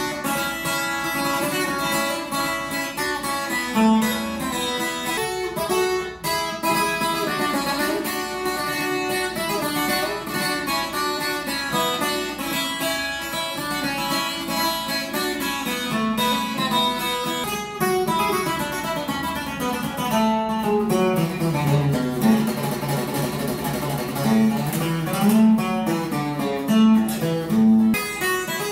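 Takamine Pro Series 12-string acoustic guitar played unplugged: a requinto-style passage of picked melody notes and runs. About three quarters of the way through, a bass run goes down and comes back up.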